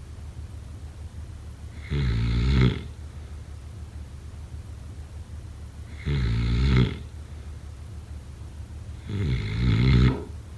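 Someone asleep snoring: three snores about every three and a half to four seconds, each under a second long, with a steady low hum between them.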